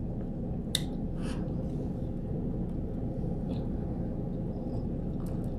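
Steady low background rumble with a faint hum, and two faint clicks in the first second and a half.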